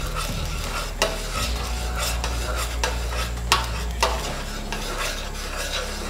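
A metal spoon stirring a slurry into boiling sauce in a stainless steel saucepan, clinking against the pan several times about a second apart, over a steady sizzle of the hot sauce and griddle. The sauce is being thickened.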